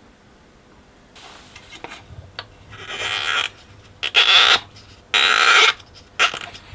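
Rasping scrapes from the metal mechanism of a BSR record-changer deck being worked by hand: three loud ones about half a second each, roughly a second apart, with a few small clicks between them.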